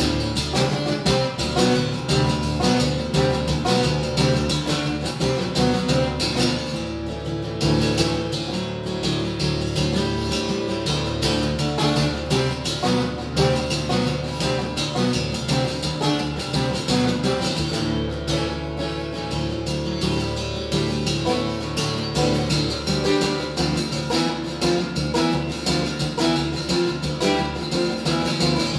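Steel-string acoustic guitar played solo in a fast, steady strumming rhythm over sustained chords.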